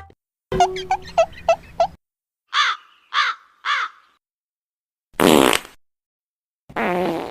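Short meme sound effects played one after another with silent gaps between them: three crow caws, each falling in pitch, around the middle, and a fart sound about five seconds in. A short clip comes before the caws and another near the end.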